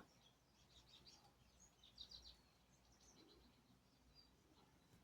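Faint, high, short bird chirps over near silence, with a small cluster about two seconds in.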